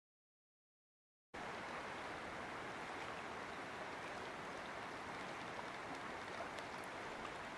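Steady, even wash of small waves on a lake, starting after about a second of dead silence.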